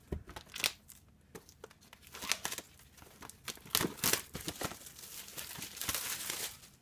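Clear plastic shrink wrap being slit and torn off a cardboard box. Scattered scratches and crackles come first, then steady tearing and crinkling from about halfway through.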